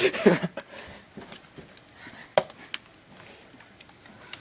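Sharp clicks and knocks of a hard plastic Xbox controller being handled and struck while someone tries to force it open. The loudest knock comes about two and a half seconds in, and a short vocal sound comes right at the start.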